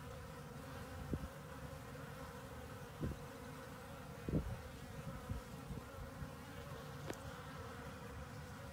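Many honeybees buzzing steadily as a package of bees is shaken into an observation hive. A few brief soft knocks come through the buzz, the loudest a little under halfway in.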